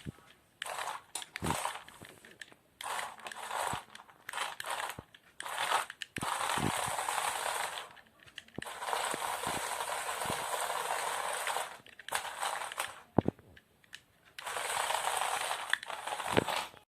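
Lego Technic tracked vehicle running in stops and starts: its small motor, plastic gears and tracks whir for one to three seconds at a time, with clicks and knocks of plastic parts in between.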